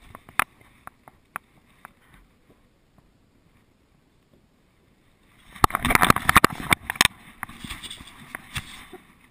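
A dog moving on carpeted stairs, heard through a GoPro Hero 2 strapped to the dog: its paws thud while the camera housing knocks and rubs. A few scattered knocks give way to a quiet pause, then a rapid run of knocks about six seconds in as the dog goes down several steps, followed by softer rubbing.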